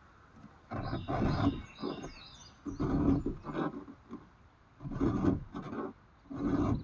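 A file rasping across the cutters of a chainsaw chain during hand sharpening: about seven strokes of half a second or so, in loose pairs. Faint bird chirps about a second in.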